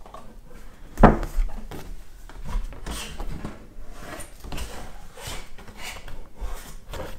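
Large cardboard toy box being handled: its end flap pulled open and pushed about, with irregular knocks and rubbing on the table, the loudest knock about a second in.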